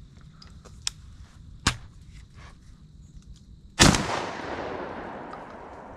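A single shotgun shot about four seconds in, its report rolling away through the woods for a couple of seconds. Two sharp clicks come before it.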